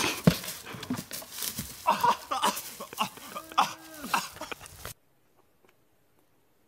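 A log carried by two running men slams into a tree trunk with a loud thud, and they cry out and yell as they are thrown to the ground. The sound cuts off abruptly to near silence about five seconds in.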